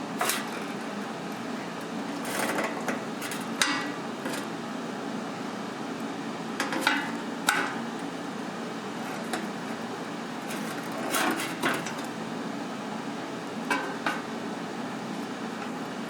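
About a dozen irregular, sharp knocks and taps of hard objects on metal, some in quick clusters, over a steady background hum.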